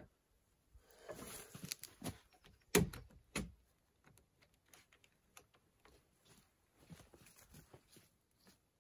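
A peeled log rail being handled and fitted against a log wall and porch post: rustling and scraping, then two sharp wooden knocks about half a second apart, followed by light taps and clicks.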